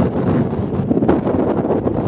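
Strong wind buffeting the microphone: a loud, gusty rushing rumble.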